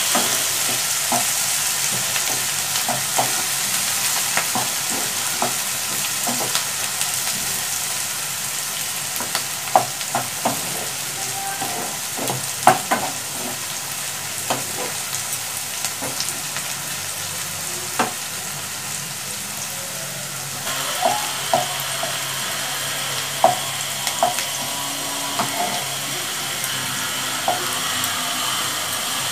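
Chopped vegetables sizzling in oil as they are stir-fried in a nonstick pan, with a steady hiss broken by scattered taps and scrapes of a wooden spatula against the pan.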